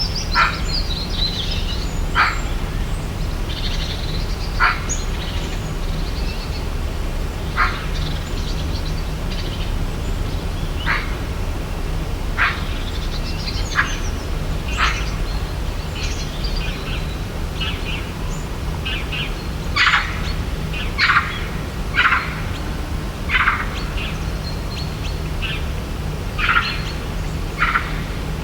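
Wild birds calling: short, sharp, high chirps repeated every second or two, louder and closer together about two-thirds of the way through, over a steady low background rumble.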